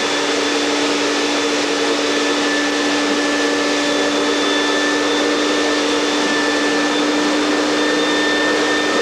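Steady whirring of an electric motor and fan running continuously: an even rushing noise with a constant hum and a faint high whine, unchanging throughout.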